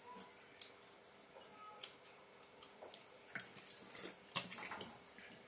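Faint, scattered clicks and taps of a spoon and fork against a glass soup bowl during a meal, a few sharper ones in the second half.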